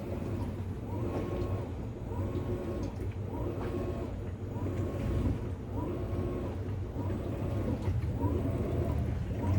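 Maytag MVW7232HW top-load washing machine running its first load: its motor whirs up and falls away in a regular cycle, about once every second and a bit, over a low steady hum.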